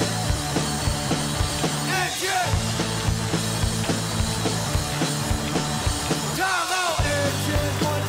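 Small rock band playing live in a punk style: drum kit keeping a steady beat under electric bass and electric guitar. The low sustained notes break off briefly twice, about two seconds in and again near the end, while bending notes sound.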